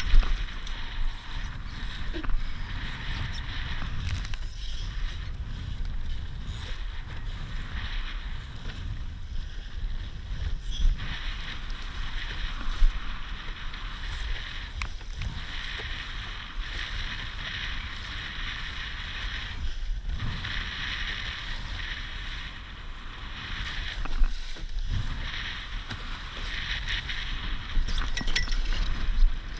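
Laser dinghy sailing hard in 15–20 knot wind: a low wind rumble buffeting the microphone, over a steady hiss of water rushing and spraying along the hull. A few sharp thumps break through, the loudest near the start and about a second before the halfway mark.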